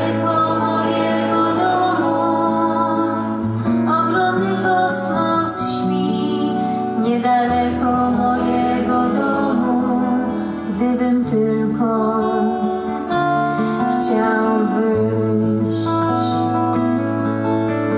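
Acoustic guitar strummed and picked with a woman singing over it, live on stage, with a low bass line changing note every few seconds.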